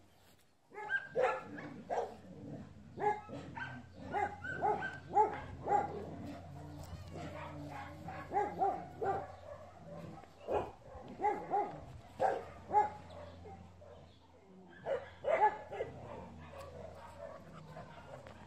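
Young dog barking and yipping in short, irregular bursts, with a quieter spell about three-quarters of the way through.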